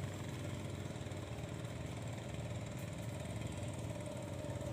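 A small engine running steadily at an even idle-like speed.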